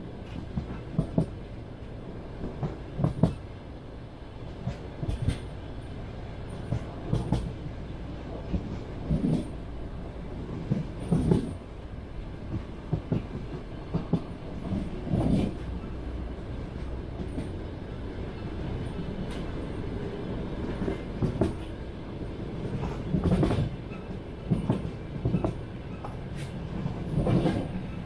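Train wheels clattering over rail joints: clusters of knocks about every two seconds over the steady low rumble of a rolling railway carriage, heard from inside the carriage.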